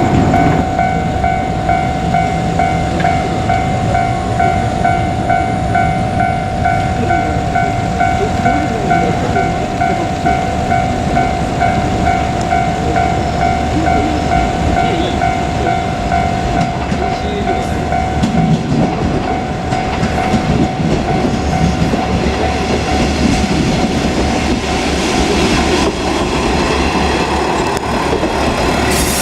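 Japanese level-crossing warning bell ringing, a steady repeating electronic chime, over the low rumble of a two-car KiHa 47 diesel railcar set.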